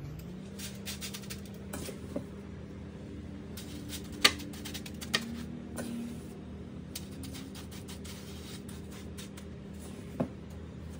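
Wet coarse salt and egg-white paste being spread and pressed onto a metal baking sheet: soft scraping and crunching, with a few sharp clicks against the tray, the loudest about four seconds in.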